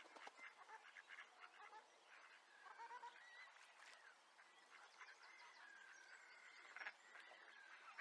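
Near silence: a very faint background of distant animal calls, scattered short chirps, clicks and a few brief gliding whistles.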